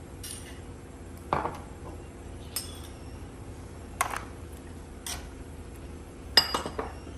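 Metal spoon clinking against the sides of a non-stick pot while stirring soup. Single clinks come about once a second, then a quick run of louder clinks near the end.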